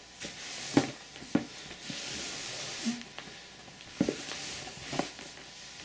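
Large cardboard box being handled and opened: rubbing and scraping of cardboard with several sharp taps and knocks, the loudest about a second in, then two more around four and five seconds in.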